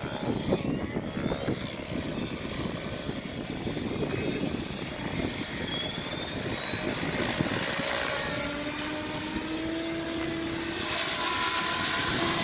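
Compass eXo electric radio-controlled helicopter spooling up its rotor and lifting off into a hover: the motor's whine rises in pitch and the rotor sound grows steadily louder. Gusty wind rumbles on the microphone in the first half.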